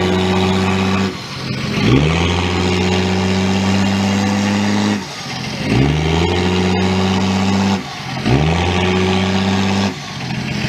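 Chip-tuned Volvo 940 turbodiesel engine free-revved hard while parked. Three times the revs climb quickly, are held high for two to three seconds and fall back toward idle. The heavy black smoke shows it is over-fuelling.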